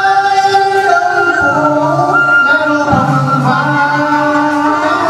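A man singing sli giang, a Nùng folk song, in long drawn-out notes with slow bends, accompanied by a bamboo transverse flute.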